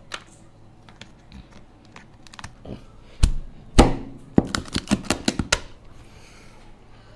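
Kitchen scissors snipping at a lobster tail shell with small clicks, then a heavy cleaver chopping through the tail onto a plastic cutting board: two heavy thuds about three seconds in, followed by a quick run of sharp cracks and knocks.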